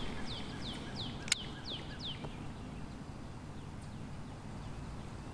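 A songbird singing a quick run of short whistled notes, each sliding downward, about three a second, stopping a little after two seconds in. A single sharp click sounds about a second and a half in, over a steady low rumble.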